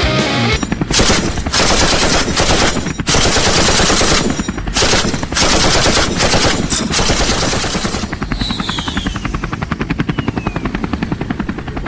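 Rapid automatic gunfire sound effects in long bursts broken by brief gaps. For the last few seconds the rattle is quicker and thinner, with a few faint falling whistles. The guns on screen are toy pistols and rifles, so the shots are dubbed effects rather than real fire.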